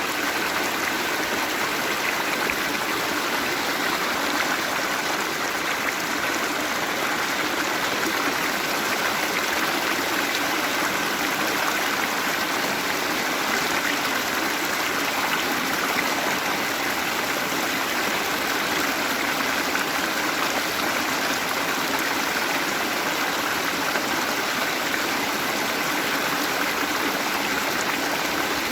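Waterfall: water falling and running in a steady, unbroken rush.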